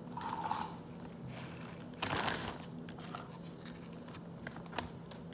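Ice and salt crunching and shifting inside a plastic zip-top bag as it is handled, with scattered crinkles and clicks and a louder crunch about two seconds in.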